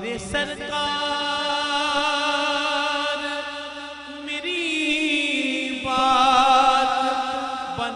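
A man's voice singing a naat, holding long wordless drawn-out notes with a fast wavering vibrato; a new, louder phrase swells in about halfway through.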